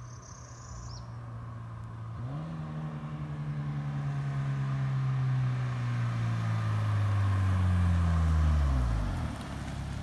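Car with an Invidia Gemini R400 aftermarket exhaust driving off. The exhaust note steps up about two seconds in and grows louder as the car nears, then falls in pitch and drops away near the end.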